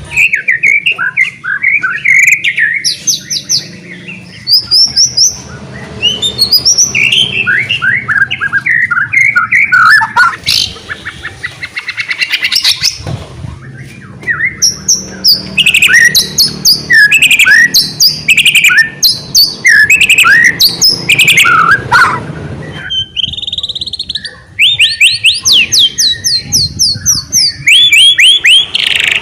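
White-rumped shama (murai batu) in full, fast song: phrase after phrase of rapid falling whistled notes and trills, with a short pause about two-thirds of the way through.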